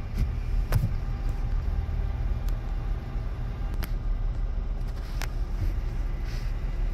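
Steady low engine rumble heard muffled from inside a vehicle's cabin, with a few light knocks and clicks over it.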